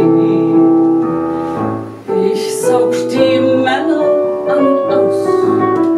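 A woman singing a German cabaret song with piano accompaniment: a held note over piano chords, then a new sung phrase.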